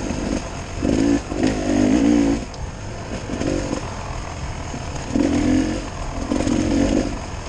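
Dirt bike engine revving up and easing off in about five bursts of throttle while riding a wooded trail.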